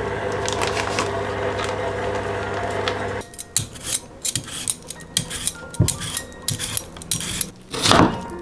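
Steady background music, then a Y-shaped vegetable peeler scraping the skin off a potato in a quick run of short strokes. Near the end a kitchen knife slices through the peeled potato onto a wooden cutting board.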